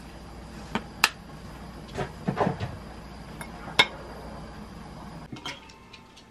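Ceramic dishes knocking against each other and on a countertop as a bowl and a side plate are handled and set down: a few sharp clacks, the loudest about a second in and just before four seconds in.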